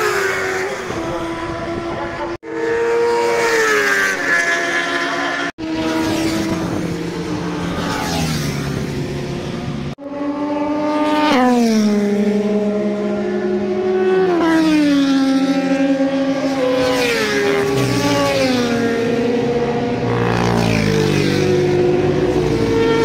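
Sport motorcycles riding past at speed on a race track, their engine notes falling in pitch again and again as they go by. The sound breaks off abruptly three times in the first half.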